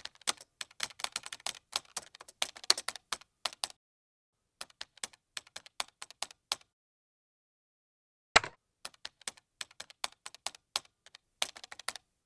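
Keyboard typing sound effect: runs of quick, irregular key clicks. The typing pauses briefly about four seconds in and for nearly two seconds after six seconds in. A single louder, longer keystroke comes about eight seconds in, and then the clicking resumes.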